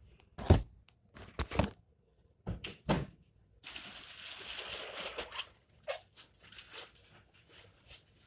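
A washing machine being pulled out from its place: several sharp knocks and thumps, then about two seconds of scraping, then a few small clicks.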